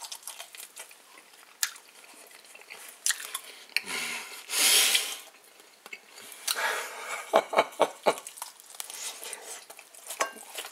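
A person eating a glazed chicken wing: irregular wet chewing and lip smacks, with a short breathy rush of air a little before halfway. Near the end the bone is set back down on the plate with a few small clicks.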